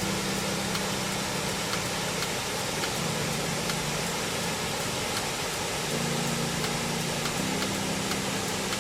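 Steady rush of a waterfall, with low held notes of background music that change pitch every few seconds.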